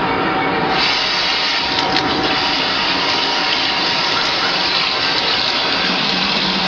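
Kitchen tap running into a stainless steel sink, the water splashing over a washcloth and plate being rinsed under it. The steady rush grows brighter about a second in.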